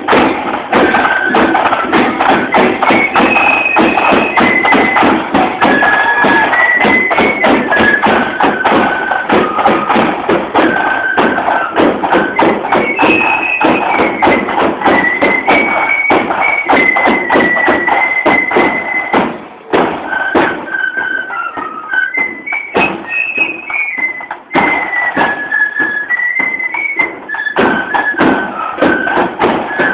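Marching flute band playing a tune: massed flutes carry a high melody over the steady beat of the bass drum and drums.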